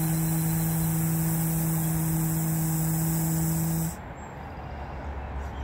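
A man humming one steady, low buzzing tone (toning), held without change and cutting off suddenly about four seconds in.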